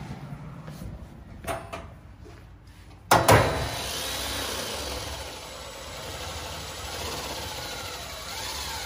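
Cordless drill driving a screw through corrugated metal panel trim into the wood behind, after a few light knocks. It starts sharply about three seconds in and then runs steadily.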